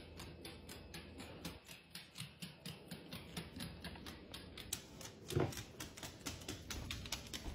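A small dog's claws clicking quickly and irregularly on a hardwood floor as it trots and prances, with one louder knock about five seconds in.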